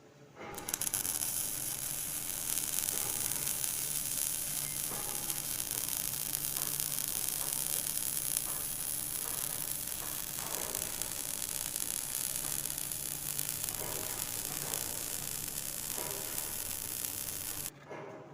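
Stick welding arc crackling and sizzling steadily as the electrode burns. It strikes about half a second in and breaks off abruptly near the end, with a low steady hum underneath.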